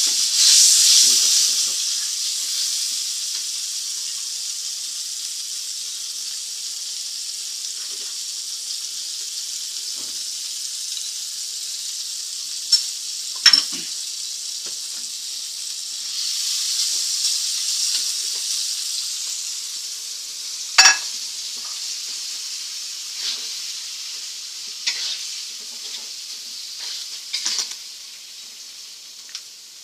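Red chili and red onions frying in oil in a wok: a steady sizzle that swells and fades, with a few sharp knocks of a spatula against the wok, the loudest about 21 seconds in and several more near the end.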